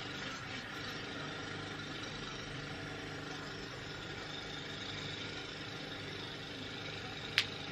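Steady low machine hum made of several steady tones, with one sharp click near the end.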